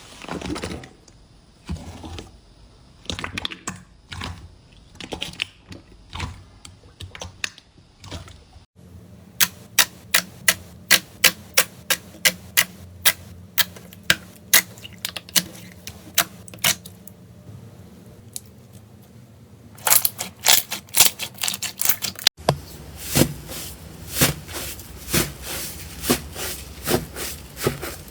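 Slime being pressed and squeezed by hand, giving sharp clicking pops and crackles. The pops come about two a second for a stretch, then bunch into dense clicking.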